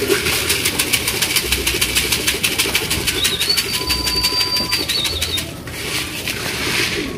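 Pigeons' wings flapping in rapid, even claps as the birds fly and land around the loft, thinning out after about five and a half seconds. A thin, high, steady whistle-like tone sounds for about two seconds in the middle.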